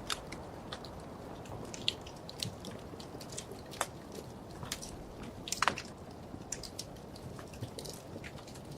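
Wood fire crackling in a fireplace: a steady low rush of flame with irregular sharp pops and snaps, the loudest about halfway through.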